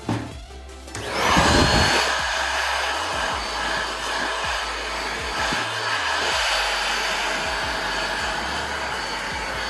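A handheld electric power tool is switched on about a second in. Its motor spins up with a rising whine, then runs steadily.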